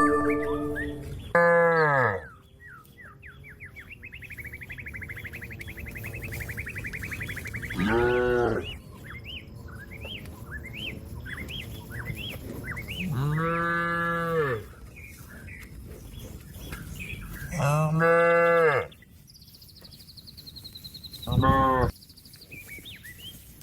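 A cow mooing five times in long, drawn-out calls a few seconds apart, calling out to other cattle.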